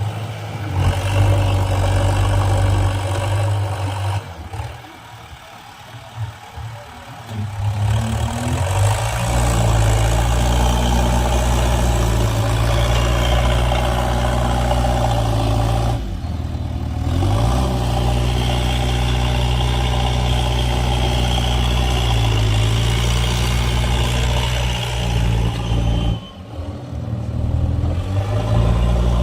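Heavy diesel machinery engine running steadily under work, its note shifting in pitch. It drops off briefly a few times, once rising again in pitch about halfway through.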